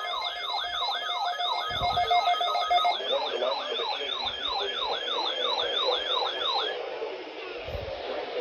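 Sirens: a fast wail falling in pitch about four times a second under a higher, slower warble, with a few steady tones for the first three seconds. They cut off about seven seconds in, leaving a steady hiss like radio static.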